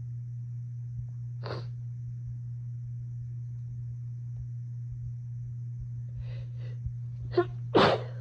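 A person takes a quick, sharp breath in and sneezes loudly near the end, an allergy sneeze set off by household dust. A few short, faint breaths come before it.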